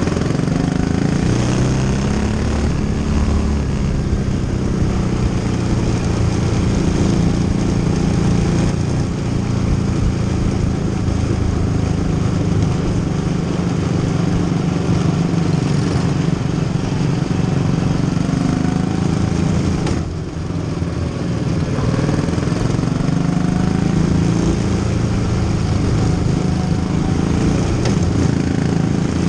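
Quarter midget race car's Honda engine running under throttle, heard from on board the car, its pitch rising and falling with the throttle and dropping briefly about twenty seconds in.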